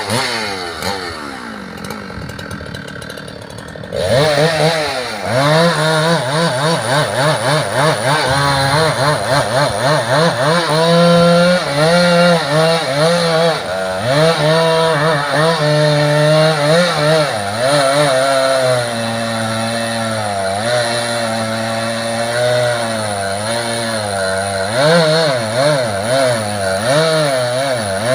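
Chainsaw cutting through timber logs, its engine speed falling away at first, picking up sharply about four seconds in, then rising and falling repeatedly as it bites into the wood.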